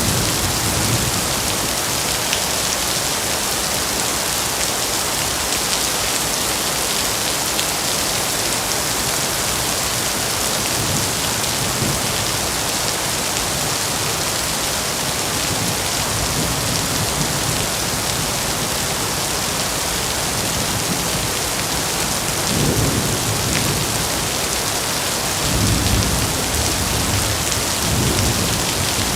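Heavy rain falling steadily in a dense, even hiss, with a few brief low rumbles in the last third.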